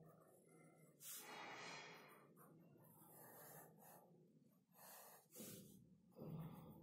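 Faint scratching of a graphite pencil drawing short wavy strokes on paper, with a few soft breaths through the nose: a longer one about a second in and shorter ones near the end.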